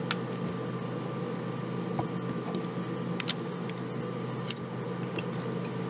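Steady hum of a room air conditioner, with a few short taps of a tarot deck being cut and set down on a wooden desk.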